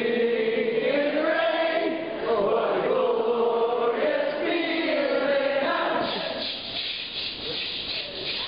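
Voices chanting in three drawn-out phrases of about two seconds each, thinning out about six seconds in.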